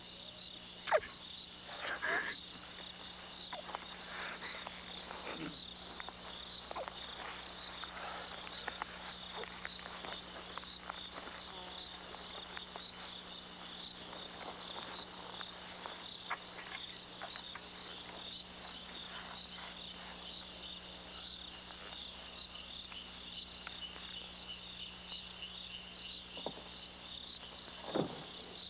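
Night chorus of crickets chirping: a steady, high, finely pulsing trill. A few brief soft noises stand out over it, about a second and two seconds in and again near the end.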